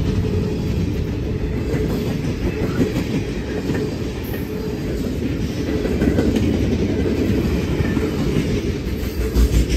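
Freight cars rolling past at close range: a steady low rumble of steel wheels on rail, with one louder low thump near the end.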